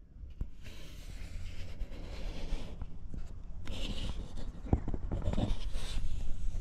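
Scratchy handling and rustling noise as the camera is moved around the block, over a low wind rumble on the microphone, with a few soft knocks, most of them about two-thirds of the way through.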